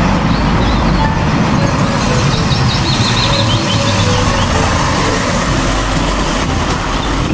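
Mercedes-Benz articulated truck with a curtainsider trailer driving slowly through a turn and past close by, its diesel engine running steadily.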